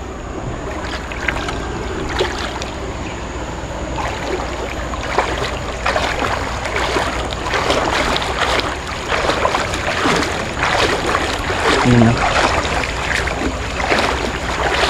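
Running water of a spring-fed stream rushing steadily, with a low rumble on the microphone; it grows louder and busier about four seconds in.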